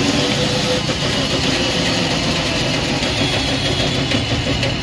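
E-rickshaw's electric drive motor at full throttle, spinning the jacked-up drive wheel with a steady running sound. It runs smoothly, the sign that the wiring repair has fixed the rattling and stalling fault.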